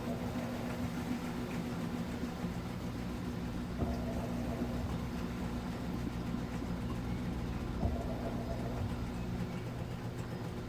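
Midea Wave-Agitator top-load washing machine running with a steady motor hum, with a soft knock and a change in its sound about every four seconds.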